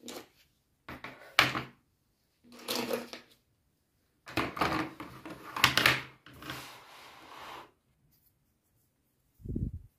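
Markers and pens clattering on a desk as they are handled around a plastic pen cup, in several short bursts of rattling. A single dull thump comes near the end.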